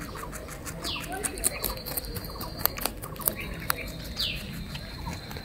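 Baby rabbits munching watermelon and grass, a scatter of small crisp clicks. A bird calls over it with a short falling chirp, about a second in and again just after four seconds.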